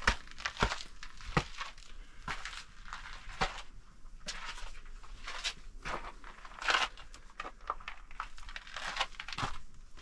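Footsteps crunching on loose gravel and grit, irregular steps about once or twice a second.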